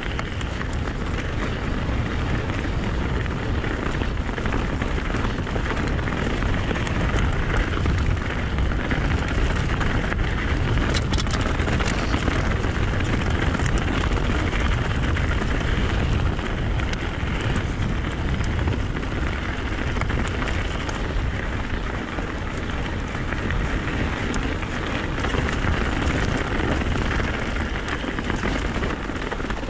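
Mountain bike tyres rolling and crackling over a loose, stony track, with the bike's rattle and a few sharp clicks. A steady rumble of wind on the camera microphone runs under it.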